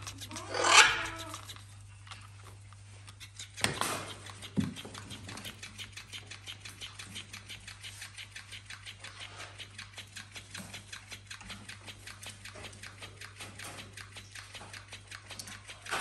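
Electric flopping fish toy whirring its tail in a fast, even ticking, several beats a second, after a short loud voice about a second in and two knocks near four seconds.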